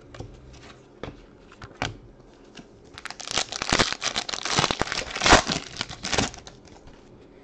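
Foil trading-card pack wrapper being torn open and crinkled by hand, a dense crackle that starts about three seconds in and lasts about three seconds. Before it come a few light clicks of cards being handled.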